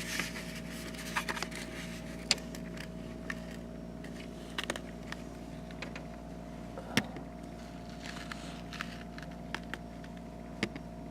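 Steady low electrical hum of room tone, with scattered faint clicks and taps, the strongest about two seconds in and near the middle.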